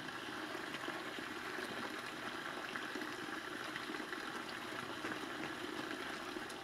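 Running water of a stream: a steady, even rush.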